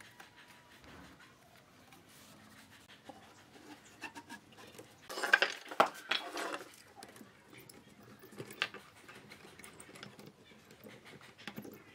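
Faint scraping and clicks as glue is spread along thin wooden strips, then a loud clatter about five seconds in as the strips are bundled and pressed onto a wooden block, followed by a few lighter knocks and clicks as a metal C-clamp is set.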